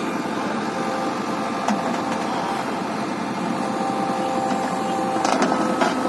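JCB 3DX backhoe loader's diesel engine running steadily with a constant hydraulic whine as the operator works the backhoe arm to shift the machine on the truck bed. A sharp knock comes about two seconds in, and a few more near the end.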